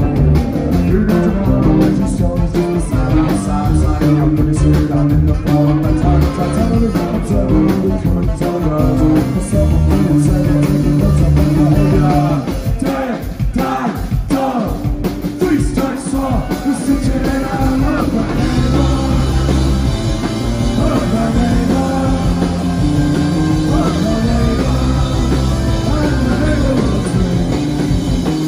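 Live rock band playing at full volume: drums, bass guitar, electric guitar and saxophone, with a singer's voice. About twelve seconds in the bass line drops away for a few seconds, then the full band comes back in with brighter cymbals.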